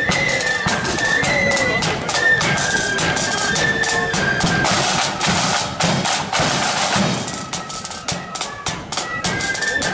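Marching flute band playing: flutes carry a tune over fast, rattling snare drums. The flutes drop out for a couple of seconds midway while the drums keep going.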